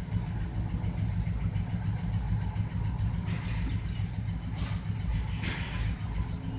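Vehicle engine idling with a steady low drone, with two short hissing noises about three and five and a half seconds in.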